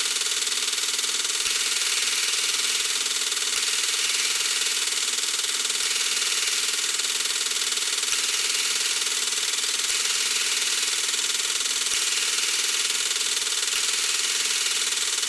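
Metal lathe running steadily under power, with a constant motor hum beneath an even machining hiss.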